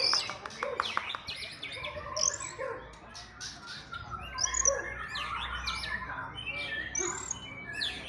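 Several caged white-rumped shamas (murai batu) singing at once: overlapping whistled phrases sweeping up and down, opening with a fast run of repeated chattering notes that stops about a second in.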